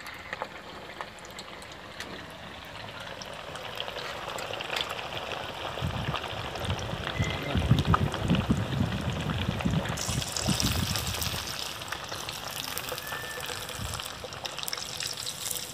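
Small fish deep-frying in hot oil in an aluminium pan: a steady sizzle with many small crackling pops, louder for a few seconds in the middle.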